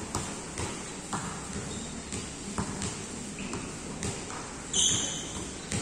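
Basketball bouncing on a hard court floor as it is dribbled, about two bounces a second, with a short, loud, high squeak about five seconds in.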